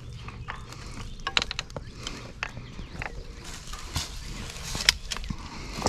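Crossbow being cocked with a rope cocking aid: the rope and string slide and the bow rattles in irregular small clicks, with a sharper click about five seconds in and another near the end.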